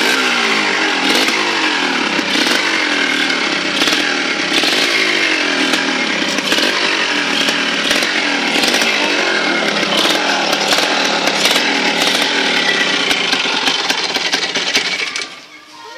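Small two-stroke engine running and being revved up and down over and over, its clutch bell making noises. The sound drops away near the end.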